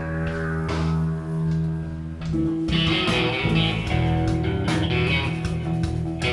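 Guitars playing in a live jam, with sustained plucked notes over a bass line.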